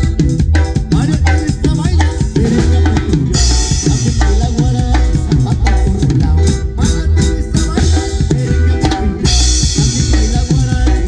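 Band music with a steady bass drum beat, snare and held melody lines; a bright cymbal-like hiss comes in about three seconds in and again near the end.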